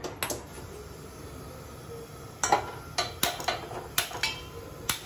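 Sharp clicks of a hand-held spark gas lighter worked at a stove burner, about eight in an irregular series. The loudest comes a little over two seconds in and carries a short metallic ring from the steel pot on the grate.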